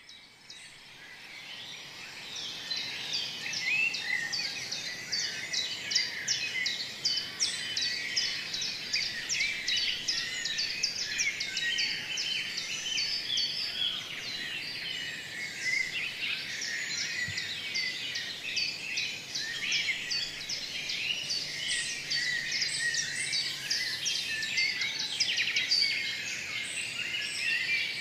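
Many small birds chirping and twittering together in a dense, continuous chorus, fading in over the first few seconds.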